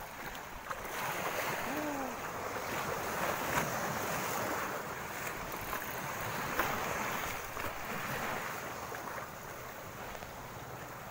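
Wind buffeting the microphone over the sea washing against the shore, a steady rushing noise that swells and eases, with a few scattered faint clicks.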